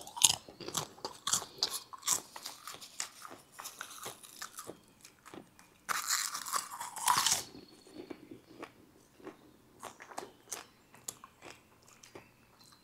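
A person eating popcorn: irregular crunches and chewing, with a louder rustle lasting over a second about six seconds in.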